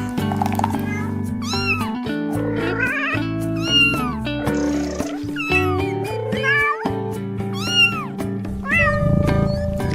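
A cat meowing over and over, six or seven short meows that rise and fall in pitch, over background music.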